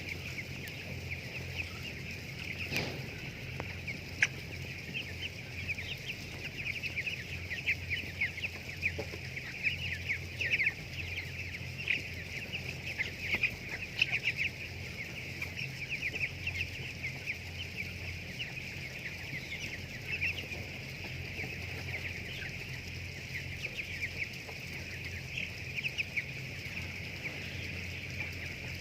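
A flock of broiler chickens calling, many short high calls overlapping continuously, over a steady low hum.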